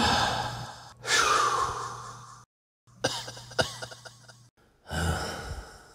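A man gasping and coughing in four harsh bursts, with a couple of sharp clicks near the middle. This is the laboured breathing and coughing of hydrogen sulfide poisoning, as the lungs bleed.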